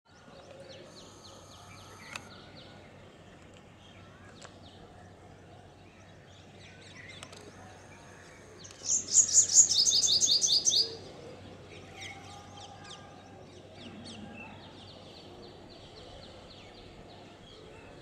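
Purple sunbird song: a loud, rapid series of high, sharp notes for about two seconds near the middle, with fainter repeated chirping before and after.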